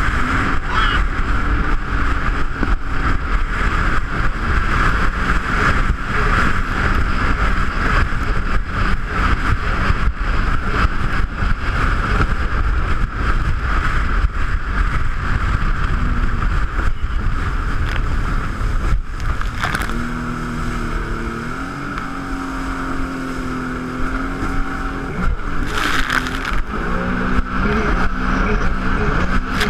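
Jet ski engine running under way, with a steady rush of noise. About 20 seconds in it eases off and its pitch shifts up and down for a few seconds, then it picks up again.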